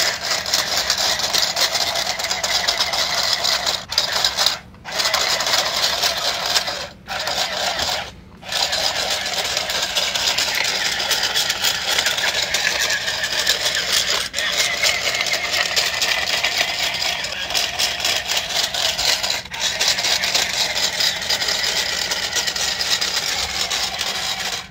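Remote-control Spider-Bot toy walking: its small geared motor whirs while the plastic legs rattle and scrape on brick. The sound stops for a moment a few times and then carries on.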